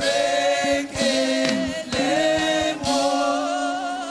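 Gospel praise singing with little or no accompaniment: voices hold long notes with vibrato, changing note about once a second.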